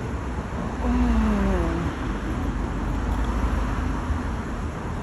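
A car passing by on the street, its pitch falling as it goes past about a second in, over a steady low traffic rumble.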